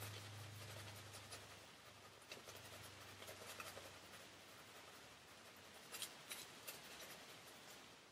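Shaving brush scrubbing lather into a stubbled face: faint scratchy swishing strokes, with a cluster of sharper strokes about six to seven seconds in.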